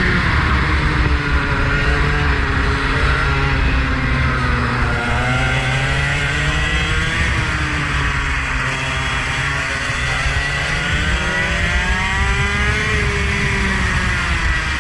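A vehicle engine lapping a circuit, its pitch rising and falling again and again as it accelerates and lifts through the bends, over a steady low rumble.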